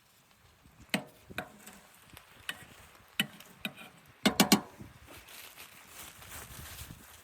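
Hard objects knocking and clattering in irregular single knocks, then a quick run of four louder knocks a little past the middle, followed by a soft hiss.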